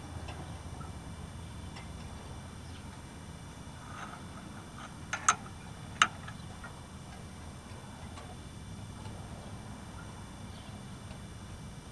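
A few sharp metallic clicks from a ratchet slowly turning a gear puller's centre bolt against an engine's fiber timing gear: faint scattered ticks, then two loud clicks near the middle, the first one doubled, over a low steady hum.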